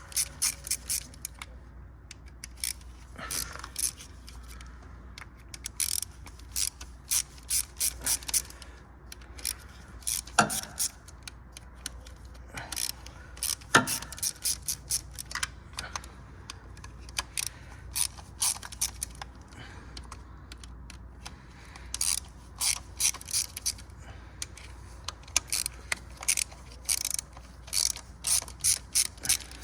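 Ratchet wrench clicking in short runs of quick clicks as the bolts of the PCV valve / oil separator are backed out one after another, with two sharper single knocks around ten and fourteen seconds in.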